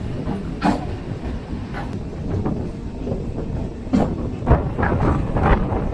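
Suburban EMU local train running along the track, heard from the open doorway of a moving coach: a steady low rumble of wheels on rail broken by sharp clacks at irregular intervals as the wheels cross rail joints.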